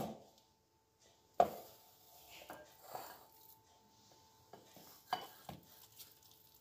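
Silicone spatula scraping thick kebab paste out of a plastic food-processor bowl and knocking against the bowls: a sharp knock about a second and a half in, then soft scraping and a few lighter knocks.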